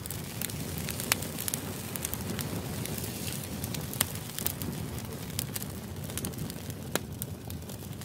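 Wood fire of split boards burning: the flames make a steady low rushing under frequent crackles, with a few sharper pops about a second in, midway and near the end.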